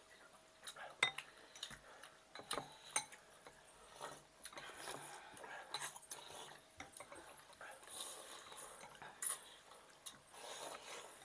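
Metal spoons and forks clinking now and then against glass bowls of noodle soup, with softer eating and slurping sounds between the clinks.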